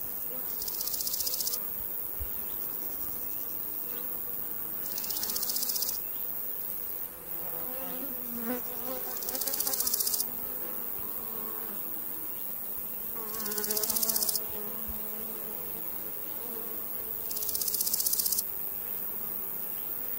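Insect song: high, buzzing bursts of rapid pulses about a second long, repeating roughly every four seconds over a steady high hiss.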